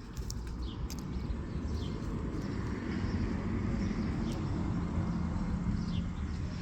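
Outdoor ambience: a steady low rumble, like wind on the microphone or distant traffic, with a few short high chirps of birds.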